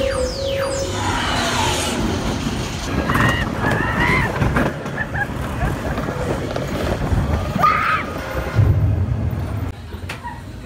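Indoor roller coaster train running along its track in the dark, a loud rumbling mix with a few riders' calls. At the start, the ride's soundtrack plays falling electronic sweeps. The noise drops near the end as the train slows into the station.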